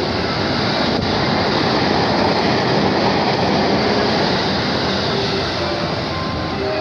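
E257-series limited express electric train running through a station at speed without stopping: a loud rush of wheel and running noise that builds to its loudest about two to three seconds in as the cars go by, then eases off as the train draws away.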